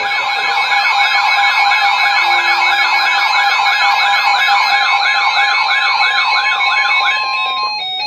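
Several weather-alert radios sounding their alarm tones at once, layered siren-like warbles of about three a second over a few steady beeping tones, triggered by an incoming Severe Thunderstorm Warning. The tones cut off shortly before the end.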